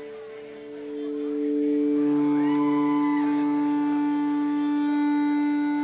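Live band's droning song intro: steady held notes, growing louder after the first second, with higher notes that slide up, hold and slide back down from about two seconds in.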